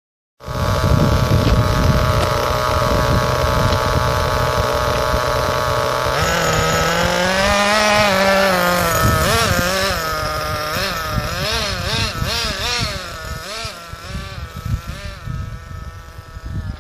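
Engine of a CEN Fun Factor ST radio-controlled stadium truck, a steady buzz at first, then revving up and down over and over as the truck drives off, growing fainter toward the end.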